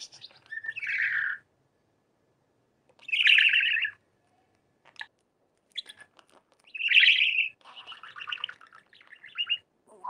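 Budgerigar chattering in short, raspy, rapidly pulsed bursts of warbling, with pauses between them. A single sharp click comes about five seconds in.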